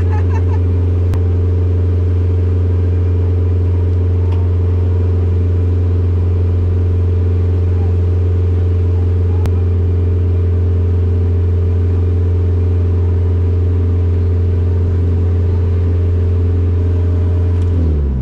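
Car engine running at steady, constant revs, a sustained drone, with the pitch falling away as the revs drop near the end.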